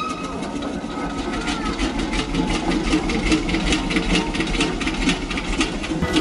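Machinery running with a steady mechanical clatter, ticking about three to four times a second.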